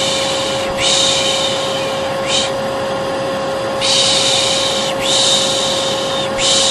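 Hair dryer running with a steady hum, with a person's 'piş piş' shushing over it in a repeating pattern. The shushing comes as hisses of about a second each, one very short between them, and one longer pause near the middle. This is white noise meant to calm a colicky baby.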